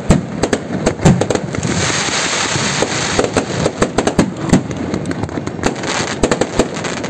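Fireworks display: aerial shells going off close by in loud, irregular bangs, one after another. There is a stretch of dense crackling about two seconds in.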